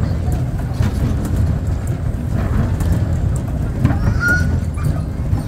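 Kiddie race-car ride running, a steady low rumble and rattle as the small cars circle on the track.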